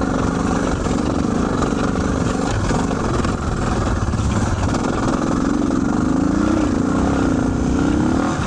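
Suzuki DR650's single-cylinder four-stroke engine, its carburettor fitted with a Procycle jet kit, being ridden and revved, its note rising and falling several times as the throttle opens and closes.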